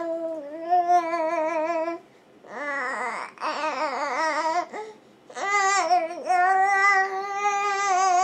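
Baby vocalizing in long, drawn-out vowel sounds, three stretches with short breaks between them, the middle one wavering up and down in pitch.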